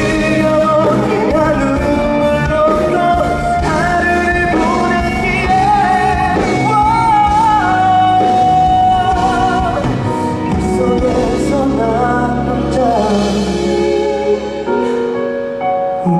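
Live pop ballad: a male vocalist singing over band accompaniment, holding long notes with vibrato, the music thinning out near the end.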